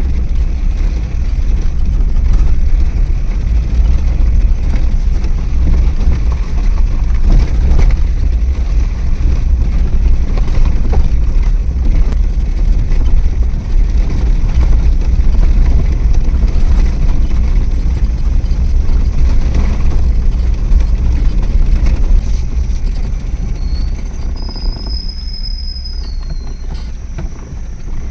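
Car driving along a forest road: a steady low rumble of engine, tyres and wind noise. Near the end the rumble eases and a thin high steady tone sounds for about two seconds.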